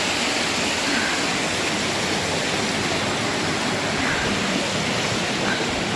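Steady rushing of the gorge's stream and waterfall, water tumbling over rocks.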